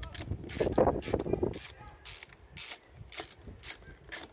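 Ratchet driver clicking at about two clicks a second as it undoes the small bolt on a lawnmower's air filter cover, after louder scraping and knocks of the socket on the bolt in the first second and a half.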